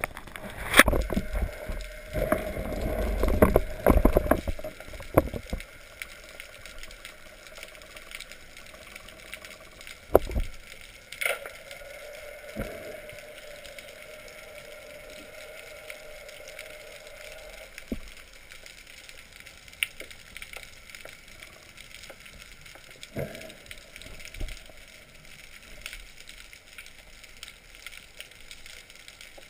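Water splashing and rushing past an underwater camera as a spearfisher dives from the surface, loud for about the first five seconds. After that, a quiet underwater background with a few scattered clicks and knocks.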